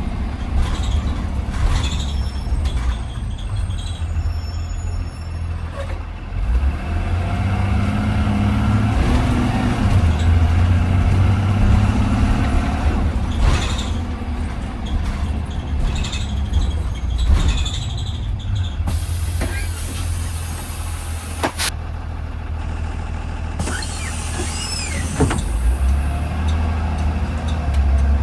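School bus heard from inside a 2020 Blue Bird Vision: the engine runs throughout, and its note rises and falls about a third of the way in. In the last third, air brakes hiss in two bursts, the second with a thin squeal.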